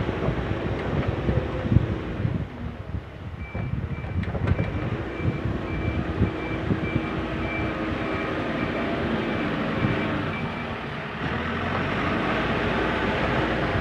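JCB 3CX backhoe loader working, its diesel engine running with irregular knocks and clanks. From about three seconds in, its reversing alarm beeps about twice a second for some seven seconds, the sign that the machine is backing up.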